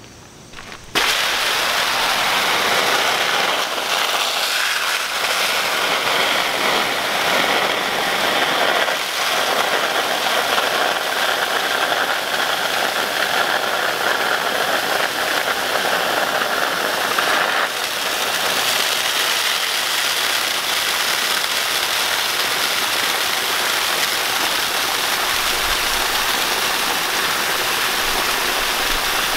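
Water from a garden hose pouring into a Cuben fiber pack liner, a steady rushing splash that starts suddenly about a second in as the sack is filled.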